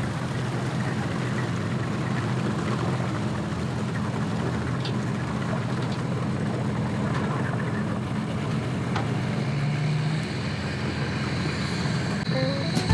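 Engine running steadily at a boat ramp, a constant low drone with no change in speed.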